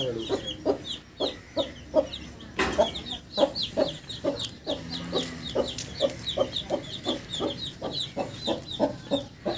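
Chicks peeping rapidly and continuously in short, high, falling chirps, over a mother hen's low, steady clucking to her brood, about three clucks a second.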